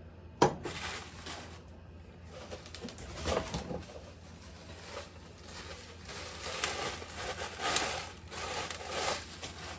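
A sharp knock as a small saucepan is set down on a glass-top stove. Then bubble wrap crinkles and rustles in irregular bursts as a wrapped pot is pulled out of a box and unwrapped.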